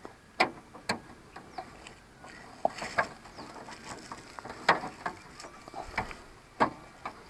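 Light, irregular clicks and taps of plastic parts being handled and fitted on a hand-push seed planter's clear seed-disc housing as a part is worked into its notches.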